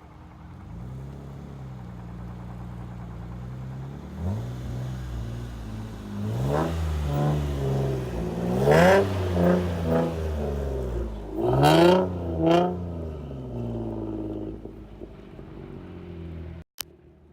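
Infiniti G35 Coupe's VQ35DE V6, with test pipes, a Bosal catback and a leaky Y-pipe, revving hard several times, its pitch climbing and falling in repeated sweeps, loudest about halfway through and again about two-thirds through. The sound drops out for a moment near the end.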